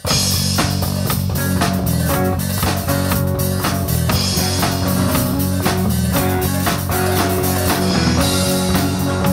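Rock band playing live: drum kit, bass guitar, and electric and acoustic guitars together.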